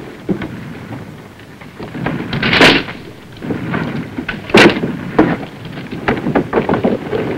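Combat sound effects: a crash about two and a half seconds in, then a sharp blast about two seconds later, followed by a quick scatter of cracks and bangs over a low rumble.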